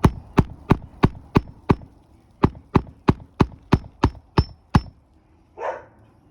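Hammer driving a nail into an asphalt shingle roof: about fourteen sharp blows at roughly three a second, with a short pause about two seconds in, several carrying a faint metallic ring. A short breathy sound follows near the end.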